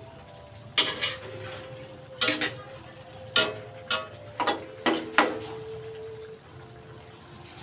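Spatula knocking and scraping against a metal wok while stir-frying vegetables: about nine irregular clanks, several leaving a short ringing tone from the pan, stopping a little past the middle.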